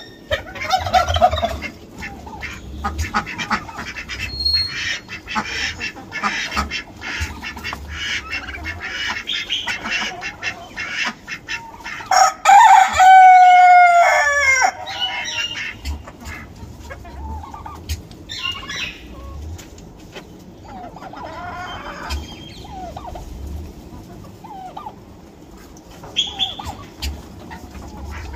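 A flock of chickens clucking and calling. About halfway through, a rooster crows once, a long call that drops in pitch at the end and is the loudest sound.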